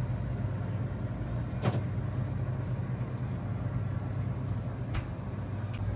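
Steady low hum of store background machinery, with a sharp click a little under two seconds in and another about five seconds in.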